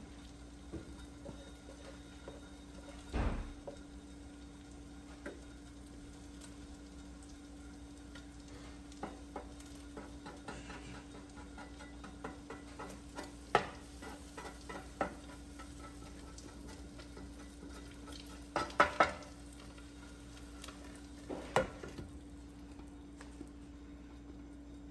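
Batter frying faintly in a covered skillet, with a glass pan lid knocking and clinking against the pan's metal rim several times, including a quick cluster of three clinks. A steady low hum runs underneath.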